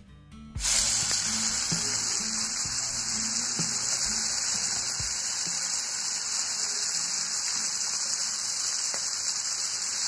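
Small turmeric-and-salt-coated fish frying in hot oil in a karahi: a loud, steady sizzle that starts suddenly about half a second in.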